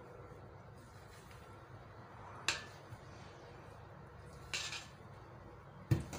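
A spatula knocking and scraping against a stainless steel mixing bowl while whipped egg whites are folded into cocoa cake batter. There is a sharp clink about two and a half seconds in, a short scrape about four and a half seconds in, and a heavier knock near the end.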